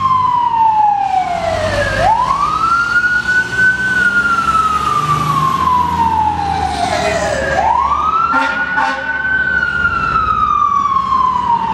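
Fire engine siren wailing: each cycle climbs quickly, then slides slowly back down, with a new rise about every five seconds.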